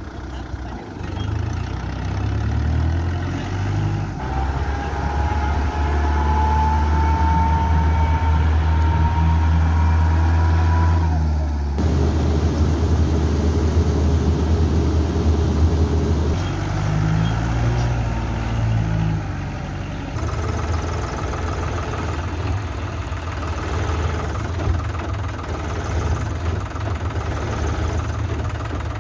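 Diesel farm engines running under load. For the first twelve seconds or so a Kubota tractor's engine pulls hard, with a faint whine rising in pitch. After a sudden change, a Dasmesh 912 combine harvester's diesel engine runs, its note shifting a few times.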